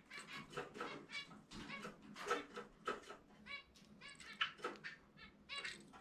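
Zebra finches calling: a steady run of short, harmonic-rich calls, several a second, with no song.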